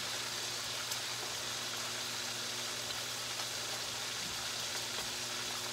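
Bacon strips frying in a skillet: a steady sizzle with a few faint pops.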